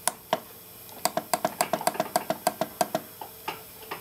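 Rapid clicking of a VFD's front-panel arrow buttons being pressed over and over, about eight presses a second in a run through the middle, with a few single presses before and after, as the parameter number is stepped up to P0708.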